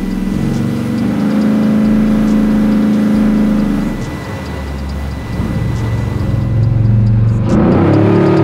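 A Chevy Blazer's LSX V8 engine pulling under way with a steady drone. It eases off about four seconds in, then builds again and is loudest near the end.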